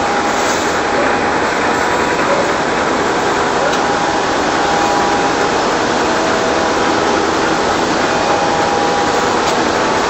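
Automatic facial tissue production line machinery running steadily: a loud, even mechanical noise with a few faint steady tones in it.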